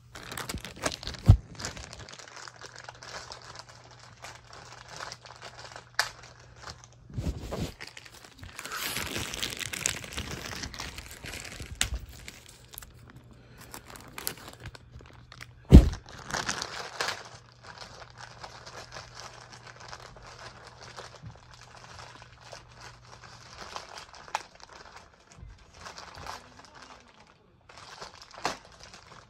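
Plastic poly mailer bag crinkling and rustling as it is handled and opened, with a few sharp knocks, the loudest about a second in and about halfway through.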